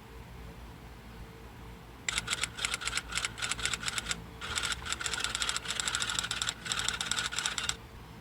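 Rapid typing clicks, many per second, starting about two seconds in over a low hum, with two brief pauses and stopping shortly before the end.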